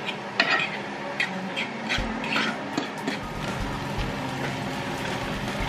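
Scrambled eggs frying in hot oil in a non-stick frying pan, sizzling steadily, with sharp clicks and scrapes of a fork against the pan during the first three seconds and a few dull thuds later on.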